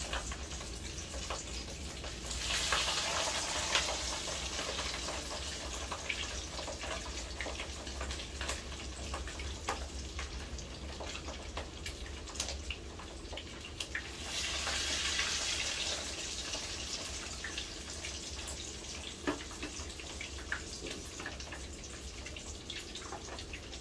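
Pieces of mud carp frying in hot oil in a pan over a below-medium flame: a steady sizzle with scattered crackles and pops. It swells louder twice, a few seconds in and again about halfway through.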